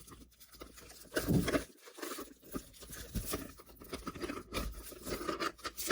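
Lamp parts being handled and taken apart: irregular rustling, scraping and small clicks, with a louder knock about a second and a half in.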